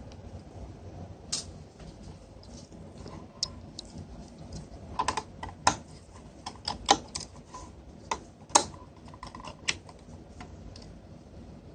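Irregular light clicks and taps of hand work on a small plastic device case, as the screws of an Obihai 202 VoIP phone adapter are taken out. The clicks are busiest and sharpest in the middle stretch.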